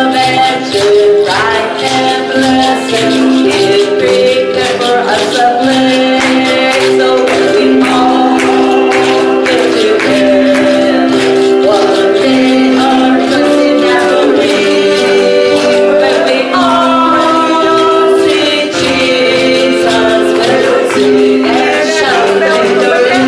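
Gospel group, a man and several women, singing in harmony through microphones over keyboard accompaniment, with a bass line and a steady percussion beat.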